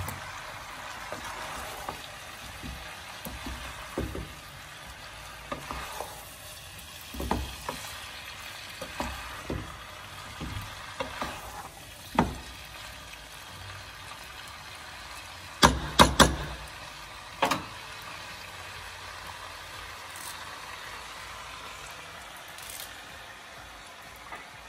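Pieces of pork sizzling in an enamelled pot as they are stirred and scraped with a wooden spatula, giving a steady frying hiss with irregular scrapes and knocks. About two-thirds of the way through come a few sharp clacks, the loudest sounds.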